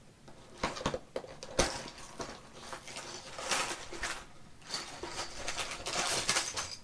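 A small cardboard kit box being handled and opened, with irregular taps, scrapes and rustling, and the light clatter of bagged plastic building bricks.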